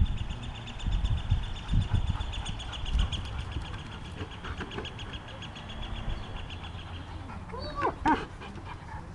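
A dog gives a few short, high, rising-and-falling whimpers about eight seconds in, after a few dull thumps near the start. A rapid high trill runs in the background and stops about seven seconds in.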